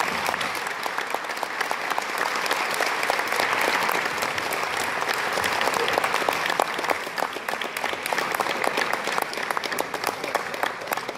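Audience applauding steadily, the clapping thinning a little near the end.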